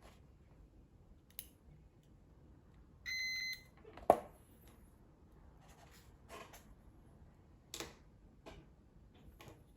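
A digital multimeter's continuity buzzer beeps once, a steady high tone lasting about half a second, showing that the harness wire being probed is intact. A sharp knock follows just after, and there are light clicks from the probes and connector being handled.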